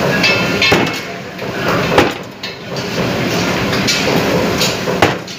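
Meat cleaver chopping raw chicken on a wooden chopping board: a few sharp, irregularly spaced chops over steady kitchen background noise.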